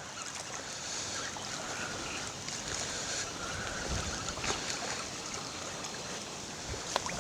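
Steady wind and wave noise on the water's edge, with a few faint clicks.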